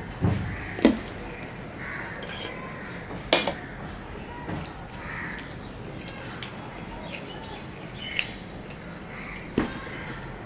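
Stainless steel plates clinking, with several sharp clinks scattered through, the loudest a little after the start and about three seconds in, as fingers mix rice on the plate and dishes are moved and set down.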